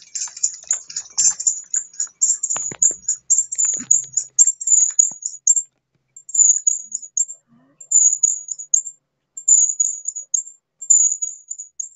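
High-pitched insect chirping in quick bursts, stopping and starting with short gaps in the second half. A few scattered clicks and knocks in the first few seconds.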